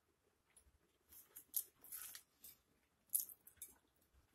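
Close, quiet eating sounds: a soft pulled pork sandwich being torn apart by hand, with crackly tearing and wet chewing clicks. They come in two short clusters, about a second in and about three seconds in.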